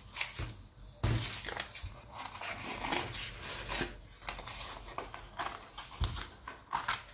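Scissors snipping through a sheet of tempera-painted paper, a run of short irregular cuts, with the paper rustling as it is turned against the blades.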